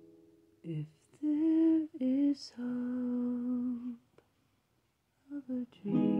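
A voice humming a short, unaccompanied melody of a few held notes, after a ukulele chord has rung out. Near the end a ukulele strum comes back in.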